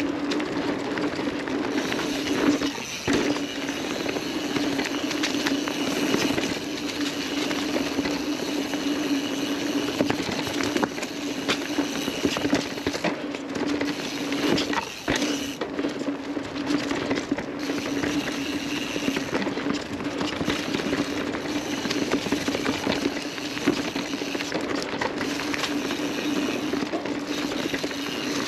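Mountain bike riding fast down a dirt woodland trail: a steady tyre hum on the hardpack, broken by frequent clicks and clatters as the bike rattles over bumps. The hum drops out briefly twice, about three seconds in and again near the middle.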